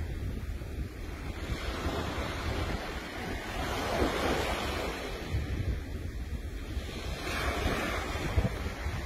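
Surf washing up on a sandy beach, swelling and easing as waves break, with wind buffeting the microphone as a low rumble.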